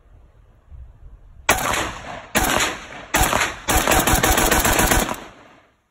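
AK-47 rifle in 7.62×39 firing four rapid strings of shots, starting about a second and a half in, the last one the longest at over a second.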